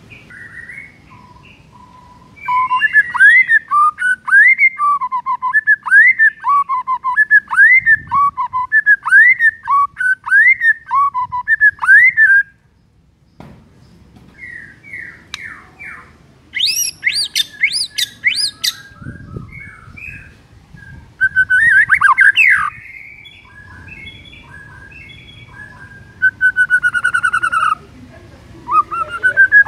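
White-rumped shama singing: a run of rising whistled notes repeated a little more than once a second, then after a short pause varied phrases, including a burst of very high rapid notes and a trilled note near the end.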